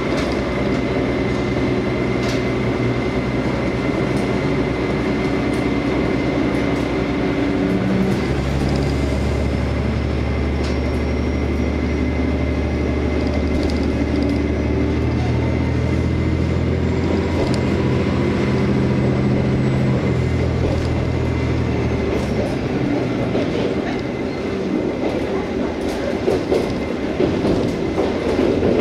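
Inside a KiHa 47 diesel railcar under way: the underfloor diesel engine runs with a steady hum that grows heavier about eight seconds in and drops away a little after twenty seconds. After that, the wheels clicking over rail joints stand out.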